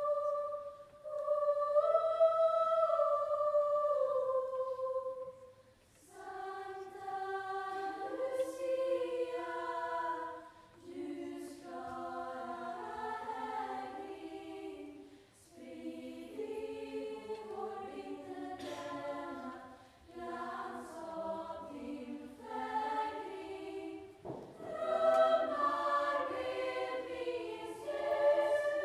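Lucia choir singing unaccompanied in high, treble voices: slow sung phrases with short breaths between them.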